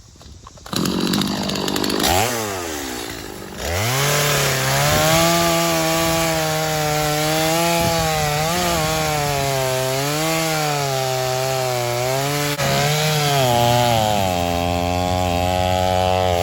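Gas chainsaw revving up under a second in and easing off, then held at high revs as it cuts through a downed tree's wood, the engine pitch wavering as the chain loads in the cut and settling a little lower near the end.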